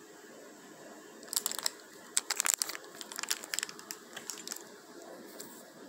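Irregular crinkling and crackling handling noise in several quick clusters, from about a second and a half in until about four and a half seconds in.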